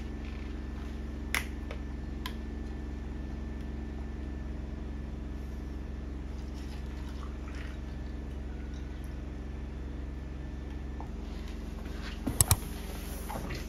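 A bottle cap clicks open, then coffee is poured from the bottle over ice cubes in a glass, trickling onto the ice. About twelve seconds in, a few sharp knocks as cardboard boxes are set down on the desk, the loudest sounds here.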